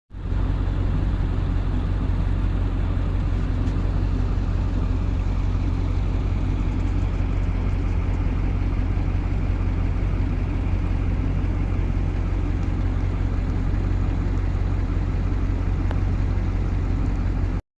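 An engine running steadily at a constant speed, with a strong low hum; it starts and stops abruptly.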